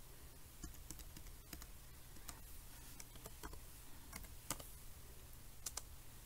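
Faint, irregular keystrokes on a Lenovo X230 laptop keyboard as a short word is typed in, with a dozen or so separate key taps and the sharpest two near the end.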